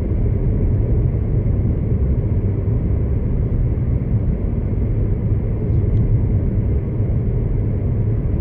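Steady low rumble of road and engine noise heard from inside the cabin of a moving Suzuki Baleno RS with its 1000cc engine.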